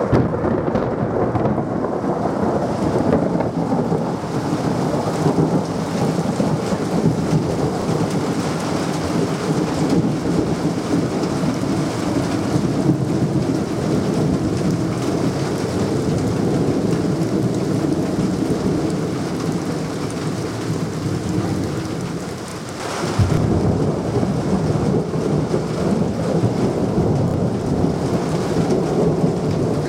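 Thunderstorm: heavy rain with long, continuous rolling thunder, a deep rumble throughout. About 23 seconds in the rumble dips briefly, then a sharper, louder peal starts suddenly.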